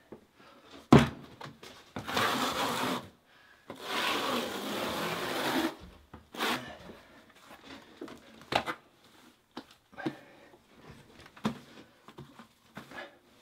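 Steel notched trowel scraping modified thin-set mortar across a subfloor, in two long strokes about two and four seconds in. A sharp knock about a second in is the loudest sound. Scattered lighter knocks and short scrapes follow.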